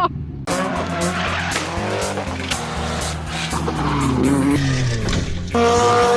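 Turbo Volvo 940 off-road car revving, its tyres spinning and skidding, over a backing music track. About five and a half seconds in, the music takes over with loud steady notes.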